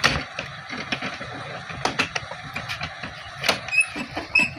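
Irregular knocks and clatter from sacks of unhusked rice being loaded onto a truck, with the sharpest knocks at the very start and about three and a half seconds in.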